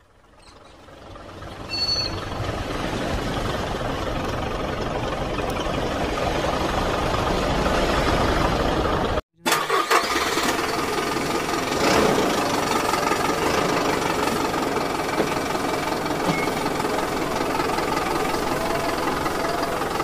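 A vehicle engine runs steadily, an engine sound effect laid over footage of toy construction vehicles. It fades in over the first two seconds, cuts out for a moment about nine seconds in, then resumes.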